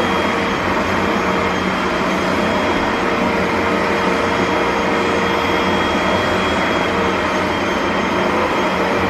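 Vacuum cleaner running steadily: a loud, even rush of air with a constant motor whine.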